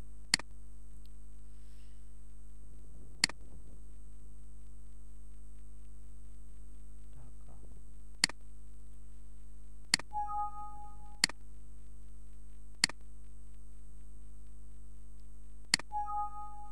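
About seven mouse clicks, spread out, over a steady electrical hum. A short two-tone Windows alert sound plays twice, about ten seconds in and again near the end, the second time as a Microsoft Access warning dialog pops up.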